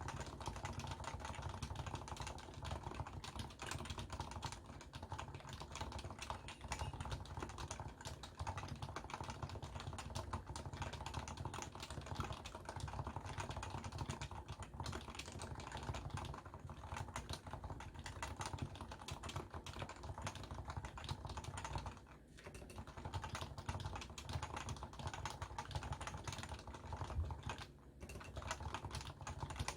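Continuous fast typing on a Leopold FC660C keyboard with stock, non-silenced 45 g Topre switches: a dense run of keystrokes, with two short pauses, one a little past two-thirds of the way through and one near the end. It is recorded through a Samsung Galaxy S10+ phone's microphone.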